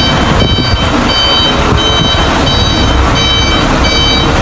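Reversing alarm of a J&T delivery truck beeping steadily, about one beep every two-thirds of a second, over the low rumble of its running engine.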